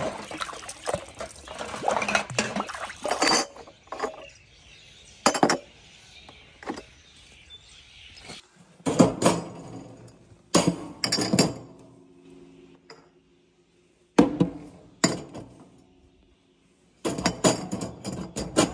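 Glass jars clinking together as they are washed by hand in water, a dense clatter for the first few seconds. Then come single clinks and knocks in small groups as the jars are set on the stainless wire racks of a disinfection cabinet.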